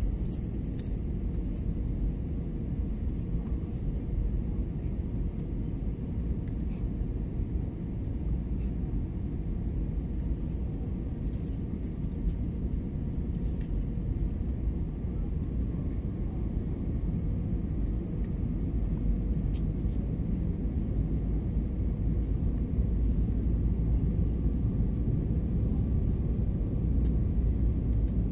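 Steady low rumble of an airliner cabin in flight: engine and airflow noise through the fuselage, with a faint steady hum. It grows a little louder near the end.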